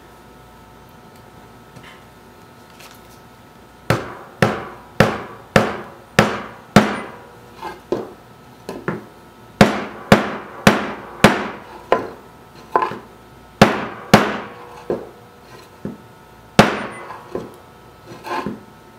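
A rubber mallet tapping a metal rod down into a tight drilled hole in a wooden panel. Starting about four seconds in, there is a run of sharp taps about two a second, in short groups with brief pauses.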